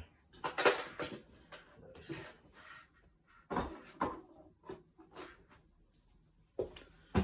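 Rummaging in a cupboard: several sharp knocks and bangs of doors and objects being moved, with quieter handling noise between, while searching for a small item.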